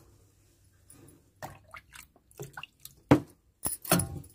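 Steel ladle stirring thin, watery ragi dosa batter in a steel vessel: a run of short wet slops and clinks at uneven intervals, the loudest about three seconds in. The batter has just been thinned with water to a runny, neer-dosa-like consistency.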